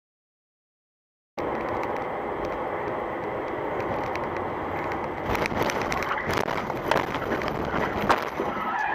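About a second and a half of silence, then the steady road noise of a car driving, heard from inside the car. From about five seconds in come a series of sharp knocks and bangs of a car crash, the loudest about eight seconds in, as a sedan collides beside the car and throws debris.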